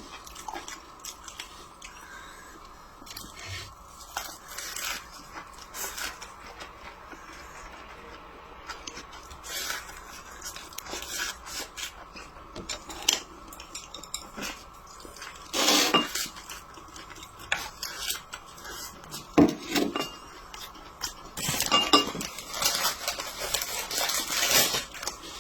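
Eating utensils clinking and scraping against bowls and plates during a meal, in scattered irregular clicks, with louder clusters of knocks about 16, 20 and 22–25 seconds in.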